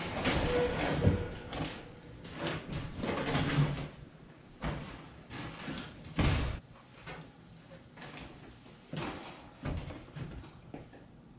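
Folded wire dog crate clattering as it is pulled from a stack of crates and lifted: irregular metal knocks and rattles, several of them sharp, the loudest about a second in.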